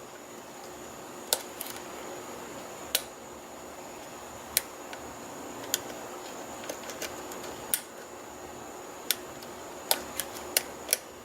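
Small metallic clicks of a hook pick and tension wrench working the pin stacks of a custom-pinned ERA rim cylinder: about ten sharp ticks at irregular intervals, a quick cluster of them near the end. The pins are springing back rather than setting.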